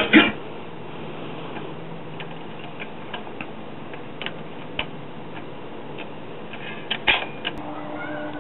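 Stylus of the 1965 Magnavox Astro-Sonic's record changer riding the run-out groove of a 45 after the song ends, heard through the console's speakers as a low surface hiss with scattered irregular ticks. Near the end a steady low hum comes in.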